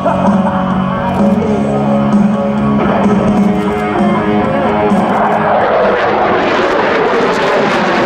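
Rock music with electric guitar, then from about five seconds in the rushing noise of the F-22 Raptor's twin turbofan engines builds up and overtakes the music.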